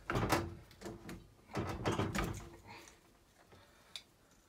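Plastic and metal parts of a Baxi Neta Tec combi boiler's pump housing scraping and clattering in three short bouts as the automatic air vent is worked loose with a driver, then a single sharp click near the end.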